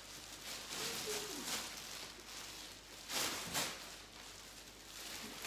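Plastic packaging being handled, rustling and crinkling in a few short bursts, the strongest about a second and a half in and around three seconds in.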